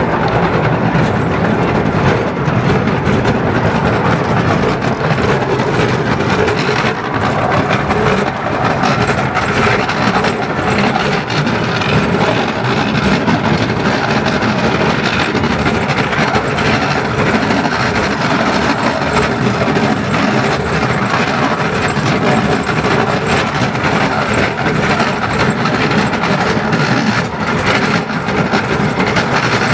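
Small 10¼-inch-gauge steam train running along the line, heard from a passenger coach: a steady rumble of wheels on the rails with scattered light knocks.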